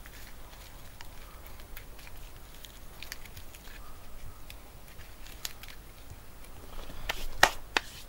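Dry juniper-bark cord and bark rustling and crackling with small snaps as a lashing knot is worked and pulled tight around a tree trunk, with a few louder knocks and rustles near the end.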